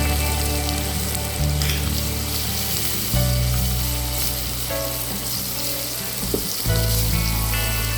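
Anchovies sizzling and crackling in hot oil in a pan as they are stir-fried.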